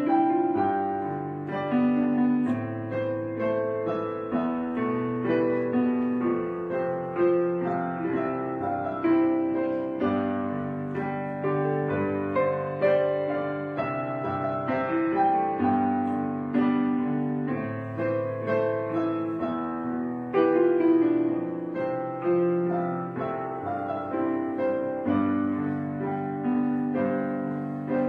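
Gentle solo piano music: slow sustained chords and melody notes with no other instruments.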